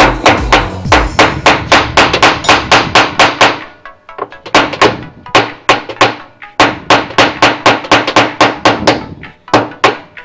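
Rapid hammer blows, about four a second with two short breaks, on a rod held against the seized aluminium hub nut of a Samsung top-load washer's drum, knocking it to turn it loose.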